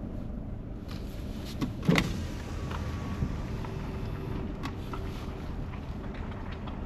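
Car cabin noise while driving: a steady low rumble from the engine and tyres, with scattered light clicks and one short, louder sharp sound about two seconds in.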